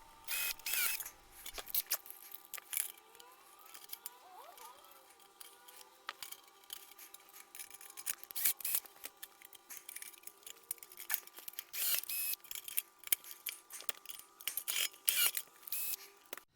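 Sheet-metal parts being pop-riveted together: scattered sharp metallic clicks and clinks, over a faint steady hum.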